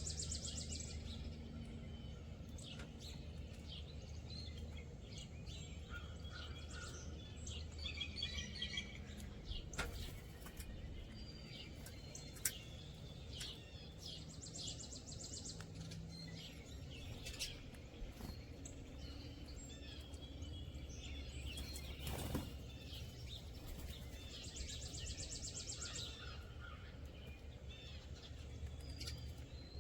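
Several small songbirds chirping and calling on and off, with a fast trill at the start and another near the end, over a steady low background rumble. A few sharp clicks stand out.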